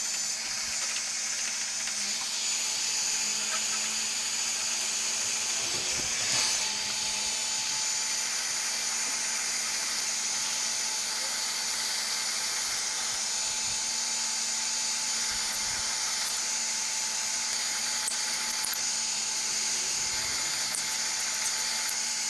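Electric heat gun running steadily: a constant motor hum under the hiss of the blown hot air.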